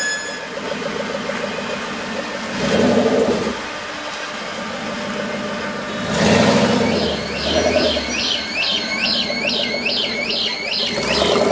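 Citroën GT concept car's engine running with several short blips of revs. From about seven seconds in, a car alarm sounds in a repeating cycle of about two wails a second.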